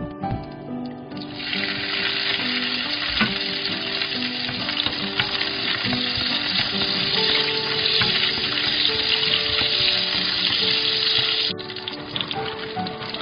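Garlic cloves sizzling in hot cooking oil in a wok. The loud frying hiss starts about a second in and cuts off suddenly near the end.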